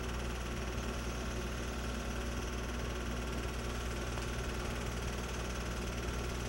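Home-movie film projector running: a steady motor hum with a fast, even mechanical clatter.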